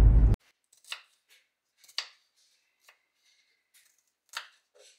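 Car cabin road noise for a moment at the start, cut off suddenly. Then a kitchen knife chopping green pepper on a wooden cutting board, single sharp chops about a second apart.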